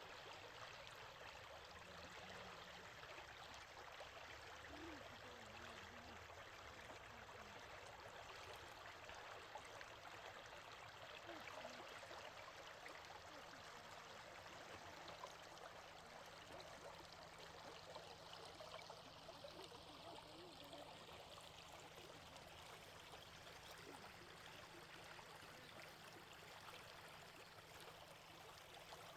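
A small stream babbling and gurgling, a faint, steady rush of running water.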